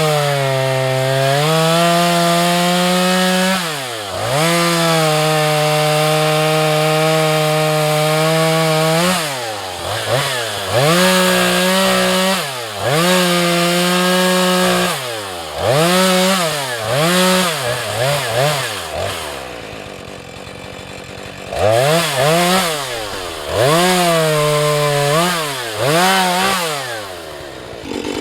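Husqvarna 435 two-stroke chainsaw cutting sycamore at full throttle. Its pitch dips and swings back up again and again as it is throttled on and off and loads in the cut. About twenty seconds in it falls back to a lower, quieter run for a couple of seconds, then revs up and cuts again.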